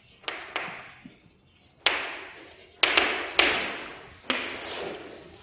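Chalk on a blackboard while words are written: about seven sharp taps and strokes, each followed by a fading hiss.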